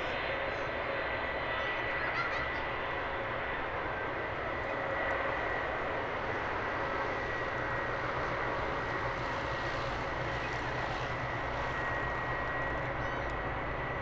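Jet airliner engines running, a steady rush of noise with a thin high whine that holds at an even level.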